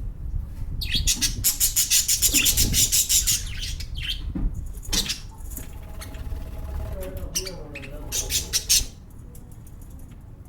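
Pet lovebirds chirping in a fast, high-pitched run of chirps, followed by scattered calls and a few more quick chirps near the end.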